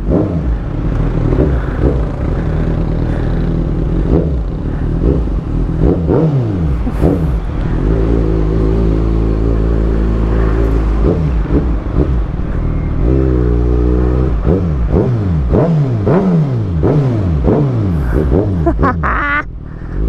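Kawasaki ZX-6R's inline-four engine through an Austin Racing GP1R exhaust, revving up and dropping back repeatedly through gear changes while riding. It settles into a steady cruise for a few seconds in the middle and again briefly later.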